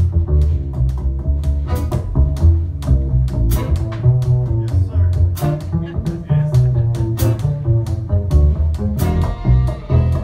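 A live acoustic band plays an instrumental passage: a plucked upright double bass line under violin, accordion and guitars, with drum-kit and cymbal strokes keeping time. About nine seconds in the drums stop and the band holds sustained notes.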